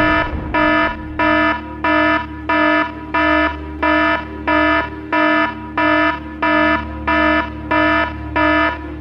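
Electronic alarm beeping: a pitched tone pulsing on and off about one and a half times a second, over a steady low hum.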